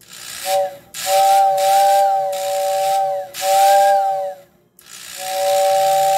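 Model train whistling tender's motor-driven whistle blowing in repeated blasts: a short toot near the start, two longer blasts, then a long one from about five seconds in. Each blast is a steady two-note chord over a rushing hiss of fan air, the motor's pitch rising and falling as it starts and stops.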